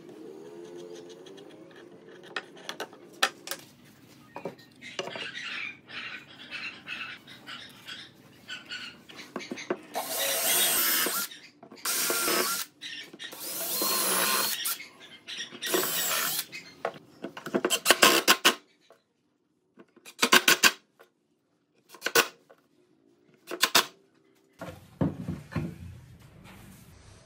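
Cordless drill boring into wood in four short bursts of about a second each, then several short sharp bursts near the end. Before the drilling, faint scratching as a pen marks the wood.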